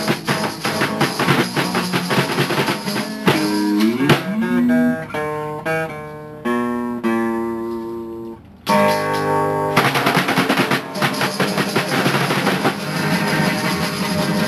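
Rock band music: strummed guitar over drums. About four seconds in the drums drop out and single held guitar notes ring one after another, then the full band comes back in at about nine seconds.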